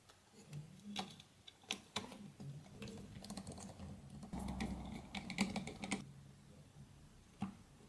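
Small plastic clicks and taps of Nokia 5800 XpressMusic phone parts being handled and fitted together during reassembly. The clicks come irregularly and bunch up a little past the middle, over a low rustle of handling.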